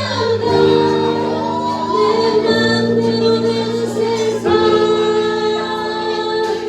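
Live band of guitars, bass, drums and keyboards playing with a female lead vocal, the chords held and changing about every two seconds.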